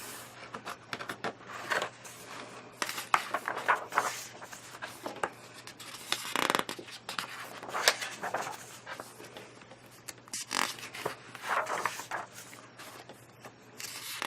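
Pages of a paper colouring magazine being turned and handled: a string of irregular rustling swishes and crinkles.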